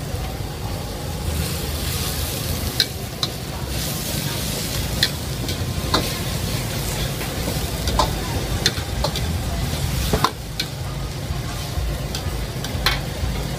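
Vegetables and noodles sizzling in a wok as they are stir-fried over a gas burner, with sharp clinks of a metal ladle and spatula striking the wok every second or two.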